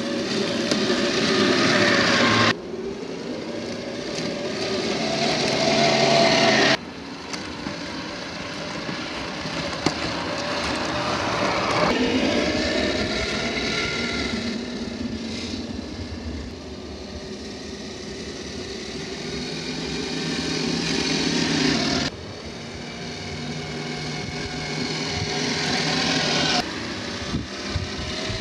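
Whine of a 1/10-scale RC crawler's brushed 540 27-turn electric motor and geared drivetrain, rising and falling with the throttle, over the hiss of its tyres churning through snow. The sound changes abruptly several times.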